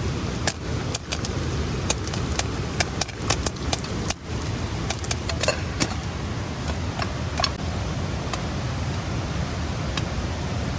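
Steady rushing of heavy rain and a waterfall, with irregular sharp clicks and taps through most of it.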